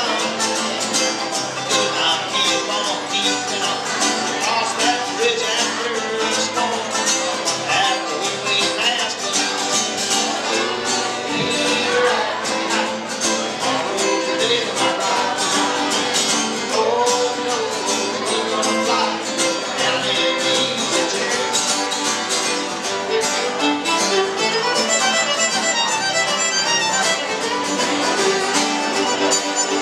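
Bluegrass trio playing live: fiddle, banjo and acoustic guitar together in a steady, continuous tune.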